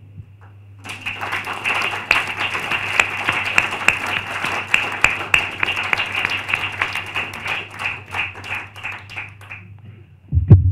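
Audience applauding, starting about a second in and dying away near the end. Just before the end, a loud thump as a microphone on its stand is handled.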